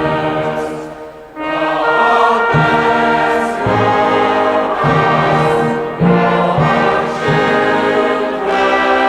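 Background orchestral music with choir and brass: slow, sustained chords changing about once a second, briefly softening about a second in.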